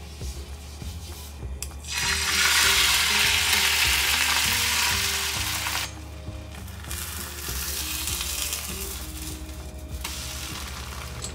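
Thin layer of beaten egg sizzling in a hot oiled frying pan, loudest from about two seconds in, then dropping at about six seconds to a quieter sizzle after the sheet is flipped. Soft background music plays underneath.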